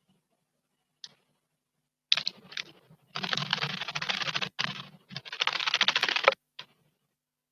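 Small bird bathing in a stone garden water basin: quick fluttering splashes in short bursts starting about two seconds in, then two longer bouts of about a second each.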